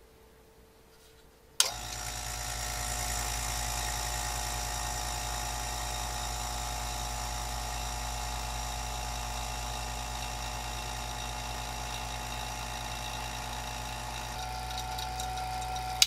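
Electric vacuum pump switched on with a click about a second and a half in, then running steadily with a low hum and a higher whine while it evacuates a pressure-cooker vacuum chamber. It cuts off abruptly at the end.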